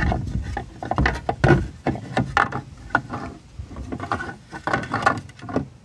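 A run of irregular knocks and clicks over a low rumble, quieting near the end.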